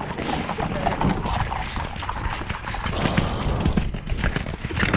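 Hoofbeats of a 17.2 hh Irish Draught horse moving along soft, muddy grass, a quick run of dull irregular thuds with rustling over them.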